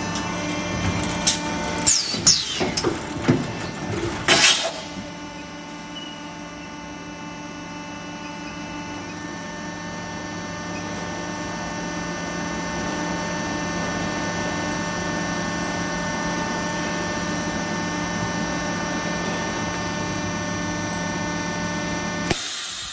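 Hydraulic extrusion blow moulding machine (Tongda HT-12L) at work. The first few seconds bring a run of sharp clunks and hisses as its parts move. Then comes a steady many-toned hum of the hydraulic pump and extruder drive while the plastic parison extrudes, and the hum cuts off abruptly near the end.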